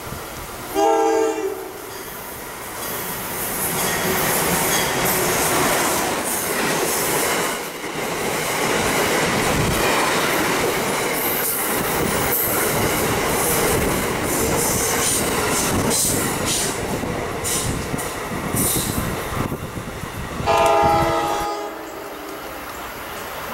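A train horn sounds one short blast about a second in. Then an Amtrak passenger train passes close by at speed, a long steady rush of wheel-on-rail noise with clatter. A second short horn blast sounds near the end.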